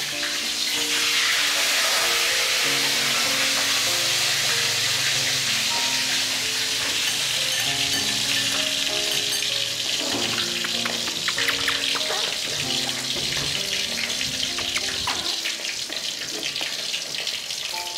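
Food frying in a wok over a gas burner, a steady hiss of sizzling oil, with a few sharper clicks in the second half. Background music with a simple melody plays underneath.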